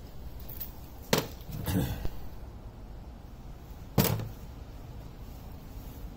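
Two sharp knocks of small parts and tools being set down on a wooden workbench, about a second in and again about four seconds in, with a brief clatter of handling in between.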